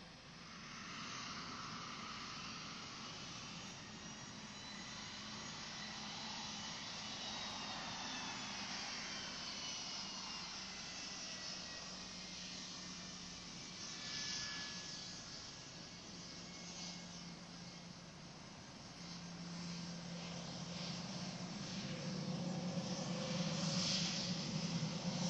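Boeing 717's twin BMW Rolls-Royce BR715 turbofans whining at taxi power as the jet taxis past. The high whine slides down in pitch over a steady low hum, and the engine sound grows louder near the end.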